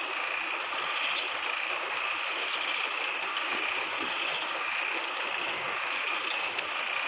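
Steady insect chorus, a high, slightly rasping drone with no let-up, with a few faint ticks over it.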